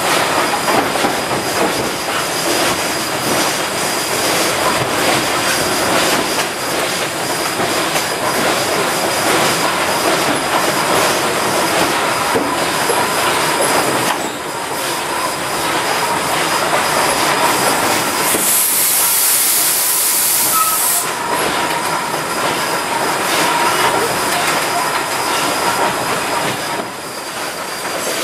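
Climax geared steam locomotive working along the line, heard from an open car just behind its tender: a steady mix of engine noise and the clatter of wheels on rail. About two-thirds of the way through, a high steam hiss cuts in for two or three seconds.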